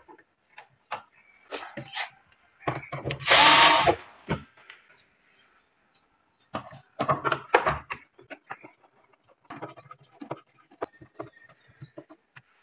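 Clicks and knocks from a cabinet door being handled and a hand screwdriver working on its concealed cup hinge, with one louder noisy burst lasting under a second about three seconds in.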